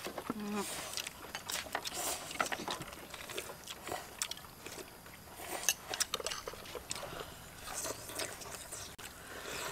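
Several people eating noodle soup: chewing, with many short clicks of chopsticks and spoons against ceramic bowls.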